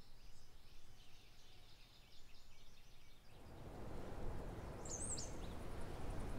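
Faint wild birds chirping over outdoor ambience. About three seconds in, a steady rushing background noise comes in, and a little later one bird gives a swooping high call.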